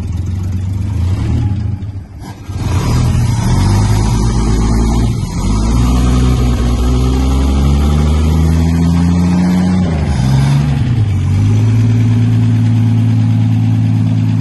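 A 1959 Jensen 541R's 4-litre straight-six runs for the first time in several years. Its revs rise and fall unevenly, then dip about ten seconds in and settle to a steady idle.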